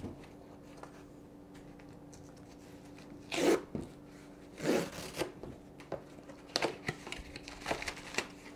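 Cardboard Priority Mail shipping box being torn open: two loud rips about a second apart, then a run of short crackles and rustles as the flaps and paper inside are handled.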